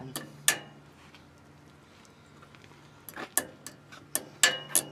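Pliers working a steel cotter pin against the spindle-nut retainer cap on a truck's front hub, bending the pin's legs over: sharp metal clicks, two near the start and a quick run of about six in the last two seconds.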